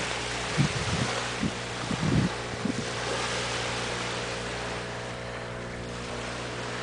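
Wind buffeting the microphone in gusts, with a few low thumps in the first few seconds, over a steady low hum.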